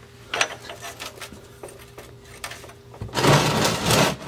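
Scattered metallic clicks and taps of a wrench turning the oil-pan drain plug on a 1955 Chevy truck. About three seconds in, a loud rushing noise starts and covers everything else.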